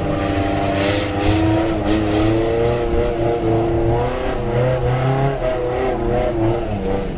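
Off-road 4x4's engine running under load through soft dune sand, its pitch rising and falling as the throttle changes.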